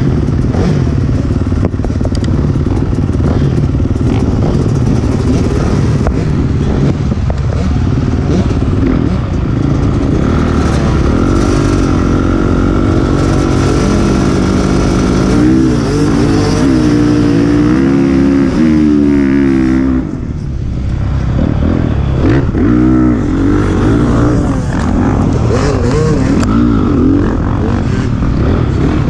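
Motocross dirt bike engines at a race start: engines revved and held high on the start line, then about two-thirds through a sudden change as the bikes launch, followed by repeated rising and falling revs as the bike accelerates through its gears in the pack.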